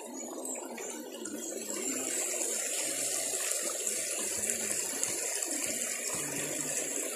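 Steady rush of flowing river water, with a steady high-pitched hiss that grows stronger about two seconds in.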